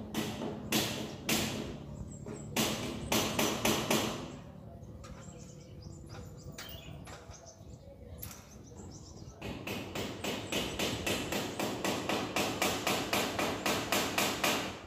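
Hammer strikes on a metal security grille door being fitted: several separate blows in the first four seconds, then after a lull a fast, even run of about five light taps a second.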